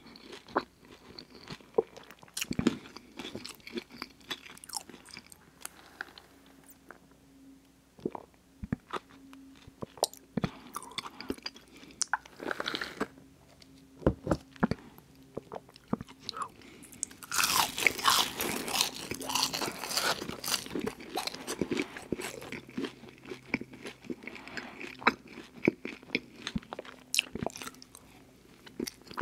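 Close-miked chewing of McDonald's french fries, with wet mouth clicks and smacks. The chewing becomes louder and denser a little past the middle.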